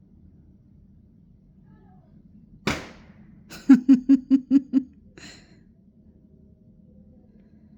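A single sharp firework bang with a short ringing tail, then about a second later a woman's short burst of laughter, about seven quick 'ha's, ending in an exhale.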